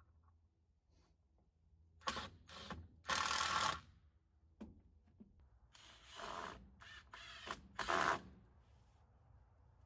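Cordless drill driving screws through a 2x4 into a log post, in a series of short runs, the longest about a second.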